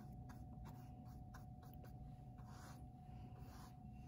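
Paintbrush bristles working acrylic paint onto a canvas: faint scratchy strokes and light ticks, with a few longer brushing strokes, over a steady faint hum.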